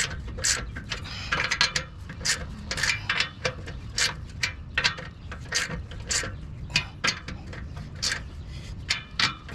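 Plastic cable tie being pulled tight, its ratchet clicking in irregular runs of sharp clicks, a few per second.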